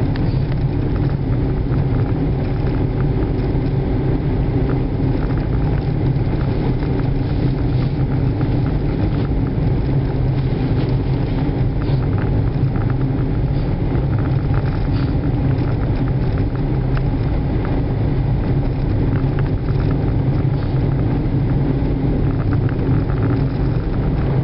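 Car engine and tyre noise, steady and unchanging, heard from inside the cabin of a moving car.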